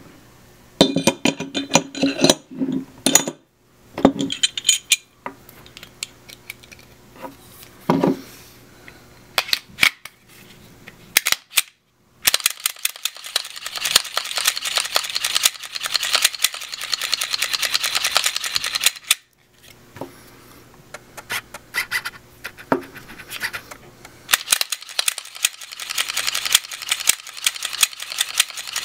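Glock 19 Gen 4 pistol being handled and reassembled, with clicks and knocks of parts fitting, then its slide worked rapidly back and forth on the frame by hand in two long spells: a gritty rasp of metal rubbing on metal. The hand-cycling works freshly applied Quicken CLP nano-diamond coating into the slide and rails.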